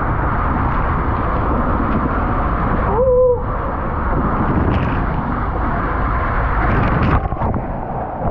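Loud, steady rushing noise of wind and water on the microphone at a waterslide. About three seconds in comes one short whistle-like tone that rises and falls.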